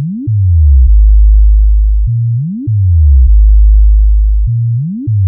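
Loud synthesized sub-bass test sound: a deep, steady bass tone held for about a second at a time, broken about every two and a half seconds by a quick rising pitch sweep that drops back down in steps.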